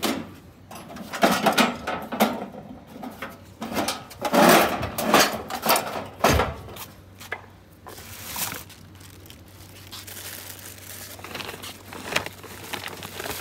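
Rustling and clattering as packets and bags of tractor parts are handled and unpacked: irregular crinkling and knocks over a low steady hum.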